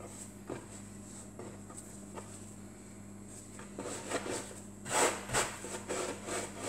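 Hands rolling and tucking a ball of pizza dough on a floured wooden board: soft rubbing and scuffing. It is quiet at first, then becomes a quick run of rubbing strokes from about four seconds in.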